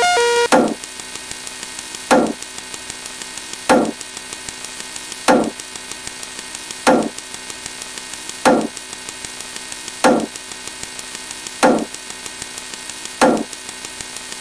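Synthetic sound effect: nine sharp knocks about every second and a half, each with a short downward sweep, over a fast faint ticking and a steady hum of several held tones.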